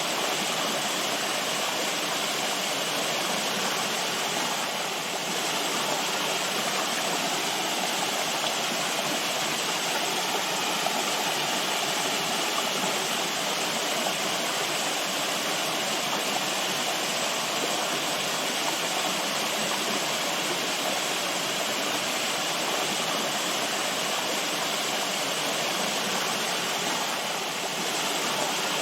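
Running water, a steady rushing of a stream or small waterfall that holds at an even level throughout.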